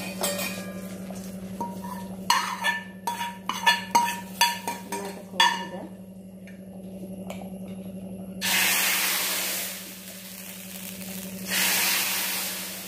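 Steel ladle scraping and clinking against a metal frying pan as a tempering of mustard seeds, shallots, curry leaves and dried chilli is scooped into a clay pot of curry: a run of sharp ringing metallic clinks. Then, twice, a ladle of curry hits the hot oiled pan and sizzles loudly for about a second.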